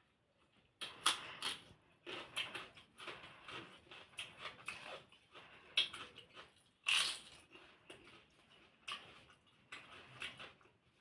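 Close-miked eating: chewing with irregular crunchy bites and wet mouth clicks, coming in uneven bursts, the loudest a little past a second in, near six seconds and near seven seconds.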